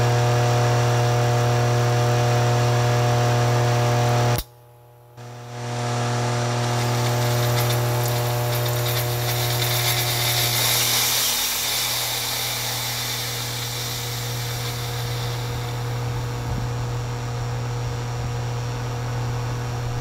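Air-conditioner condensing unit's compressor humming loudly and steadily while its start capacitor is held in circuit by a potential relay with welded-shut contacts. About four seconds in there is a sharp crack and a brief lull, then the hum returns with a hiss that swells as the overheated start capacitor vents smoke, fading again near the end.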